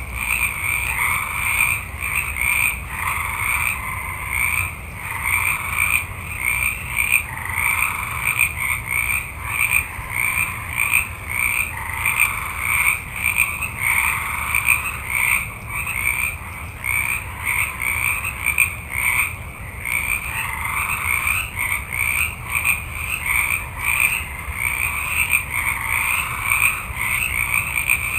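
A chorus of many frogs croaking, with short repeated calls overlapping without a break, over a steady high-pitched ringing and a low rumble.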